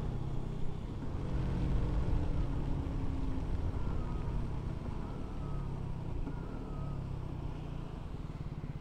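KTM 125 Duke's single-cylinder four-stroke engine running under way, mixed with wind and wet-road tyre noise. Near the end it settles into an even, regular pulse as the bike slows.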